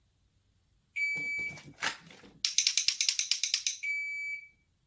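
Electronic dry-fire training timer: a shrill start beep about a second in, with a sharp click and soft thumps of movement after it. A fast rattling buzz follows from about two and a half seconds, then a second shrill beep before the end.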